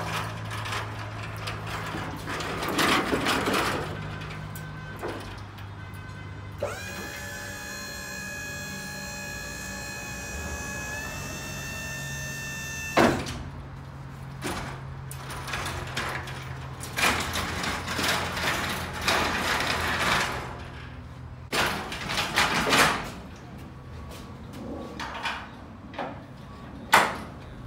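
A truck liftgate's hydraulic pump motor whines for about six seconds as the platform rises, ending in a sharp clunk as it stops. Before and after, a wheeled aluminium shelving unit on casters rattles and clanks as it is pushed and rolled over the liftgate and the truck floor, over a low steady hum.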